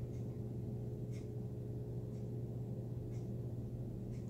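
Small electric motor of a rotating display turntable running with a steady low hum, with a faint tick about once a second as it turns.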